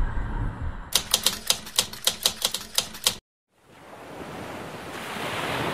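A low background rumble in the first second. Then a quick run of typewriter key clicks, about a dozen in two seconds, as the credit text types out. The clicks cut off sharply, and after a brief silence a soft hiss like surf swells up.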